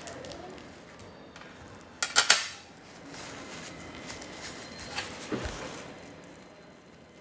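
A quick cluster of sharp clinks, like hard objects or utensils knocking together, about two seconds in; a fainter click and a dull thump follow around five seconds in.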